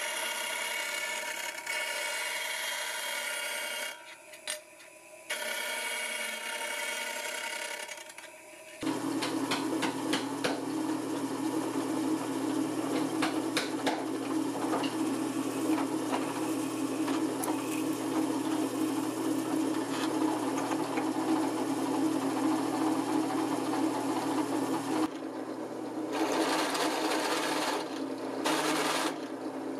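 A bench disc sander grinding the edge of a small brass plate, briefly interrupted about four seconds in. From about nine seconds in, a bench drill press runs with a steady motor hum while its twist bit bores into the brass plate held in a drill-press vise, with fine clicking from the cutting. In the last few seconds it eases off and comes back in short spells.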